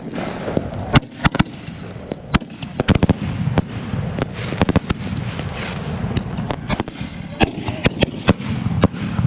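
Fireworks going off: many sharp, irregular cracks and pops, bunched around the middle and again near the end, over a steady low background din.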